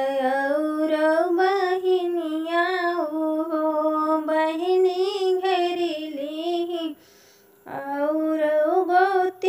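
A woman singing a traditional sohar folk song, drawing out long held notes with wavering, ornamented pitch. She breaks off for a breath about seven seconds in, then sings on.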